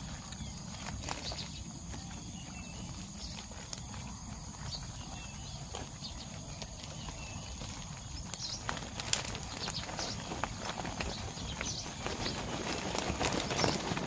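Irregular clicks, taps and rustles of fish flapping against a wire-mesh fish trap and a plastic sack as the catch of catfish and gourami is shaken out, growing busier in the second half.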